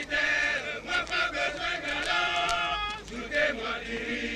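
A group of men chanting a song together in rhythmic phrases, typical of soldiers singing on the march.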